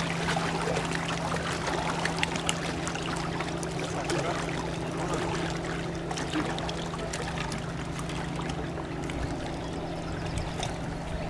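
A steady low hum over the wash of river water against a rocky bank, with scattered small clicks.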